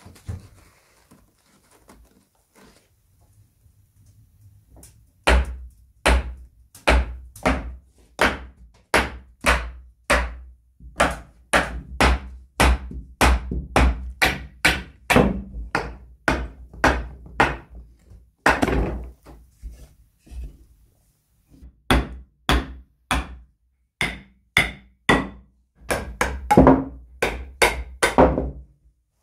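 Hammer blows knocking on the wooden frame of an old rocking horse to drive its joints apart, a steady run of sharp knocks about two a second with a short break past the middle.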